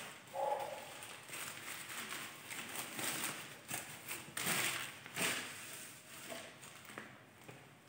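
Cloth wiping and rubbing over a glass TV stand shelf in irregular strokes, with light knocks and a brief squeak about half a second in.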